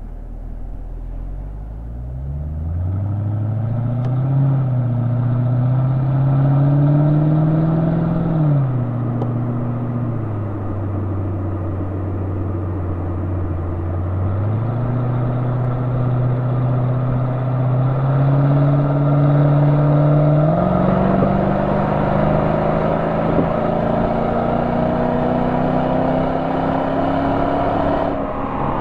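Exhaust note of a 2003 Mercedes-Benz SL500's 5.0-litre V8, recorded at the tailpipe while driving. The engine pulls up in pitch, drops twice as the automatic gearbox upshifts about eight and ten seconds in, cruises steadily, then steps back up twice (halfway through and about two-thirds through) and climbs steadily under acceleration.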